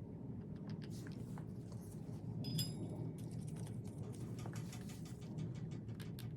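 Small metallic clicks and handling noises from bolts and tools being worked by hand, with one short ringing clink of metal about two and a half seconds in, over a steady low hum.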